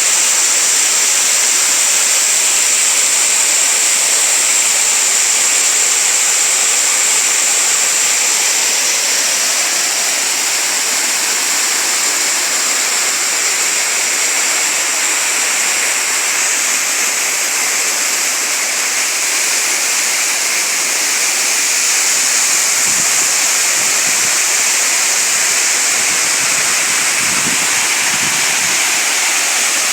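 Waterfall: water pouring and rushing over rock into a stream, a steady hiss-like rush with most of its energy in the higher range.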